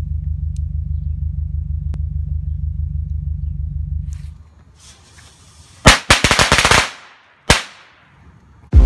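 A string of Red Rhino Power Crackers firecrackers going off in a rapid, loud run of bangs lasting about a second, then one last bang. It is preceded by a steady low hum inside a car.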